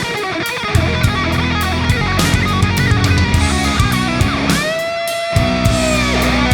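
Background rock music with distorted electric guitar and drums, including a bent, sustained guitar note near the end.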